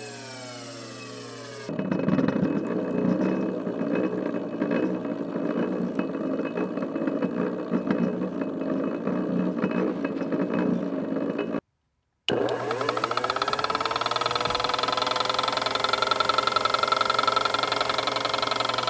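Restored 1930s Leland Electric variable-speed reversing motor under lever control. It first winds down with a falling whine, then about two seconds in changes to a rougher, rattling run for about ten seconds. After a brief break it spins up with a rising whine and settles into a steady whine.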